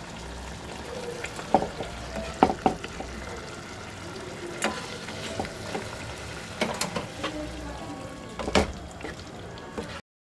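A plastic serving spoon stirring and scraping in a pot of chicken and potato stew, with scattered clicks and knocks against the pot as the stew is spooned out.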